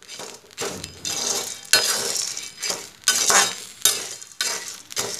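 Metal spatula stirring black chickpeas through hot salt in a metal kadhai as they dry-roast: repeated gritty scraping and rattling strokes, about one or two a second.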